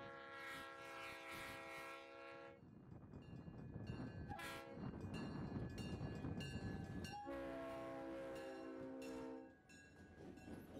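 A diesel locomotive horn sounding a multi-note chord in three blasts, long, short, long, over the low rumble of a moving train.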